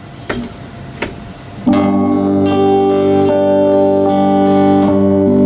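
Three sharp clicks at an even pace, then the band comes in together on loud, sustained strummed acoustic guitar chords with electric guitar, the opening of a song.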